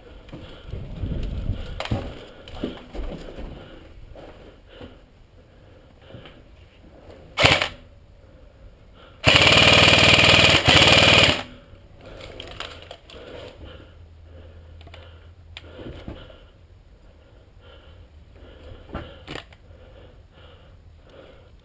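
Airsoft electric rifle firing on full auto: a short burst about seven and a half seconds in, then a loud continuous stream of about two seconds with a brief break partway through. Scattered light clicks and rustling of gear and footsteps run between the bursts.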